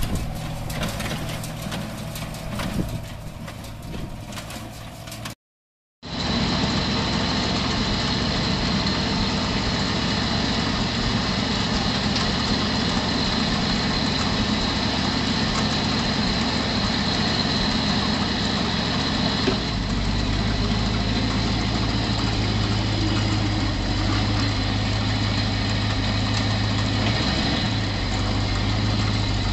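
A Fiatagri tractor and New Holland small square baler running in the field, with a rapid clattering from the baler. After a short break of silence, the engine of a bale wagon runs steadily while it tilts a stack of square bales upright, with a low steady hum joining in about two-thirds of the way through.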